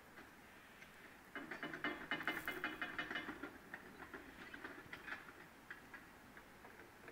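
Rapid metallic clicking and rattling from canal lock gear being worked, starting about a second in, loudest for a couple of seconds, then thinning out into scattered clicks.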